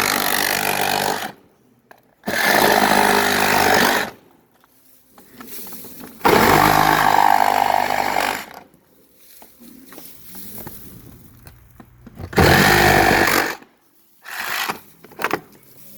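Milwaukee Sawzall reciprocating saw cutting out the opening for an electrical box, run in four bursts of one to two seconds with short pauses between them.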